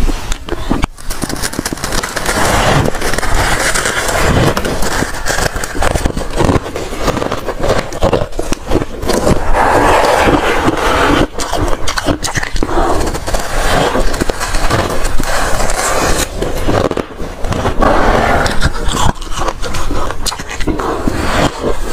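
Soft freezer frost and ice being scraped and crunched: a dense, continuous crackling with a few brief dips.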